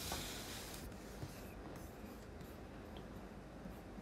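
Faint rustling, with a brief hiss in the first second, then low background noise and a few faint clicks.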